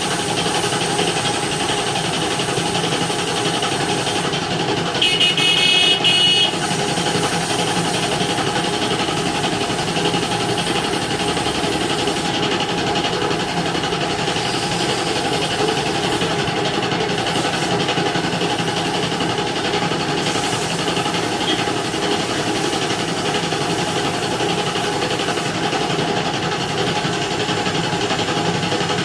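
Steady drone of running engines and street traffic, with a vehicle horn sounding once for about a second and a half around five seconds in.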